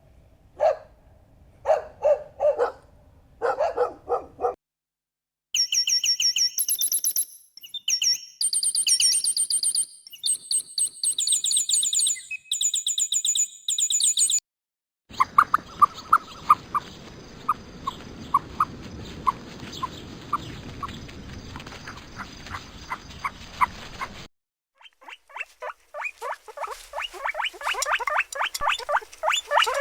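A string of separate animal sound clips joined by abrupt cuts. First a dog barks a few times in short bursts. Then come several seconds of dense, high chirping calls, then a steady hiss with regular clicking, and near the end a rapid run of short animal calls.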